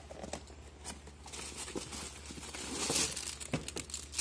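A few light knocks, then a clear plastic bag crinkling and rustling as the new coiled GFCI cord is taken out of its packaging, loudest about three seconds in.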